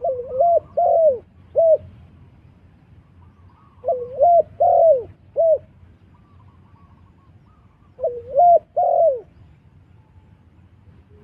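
Spotted dove cooing: three phrases of several coo notes each, about four seconds apart.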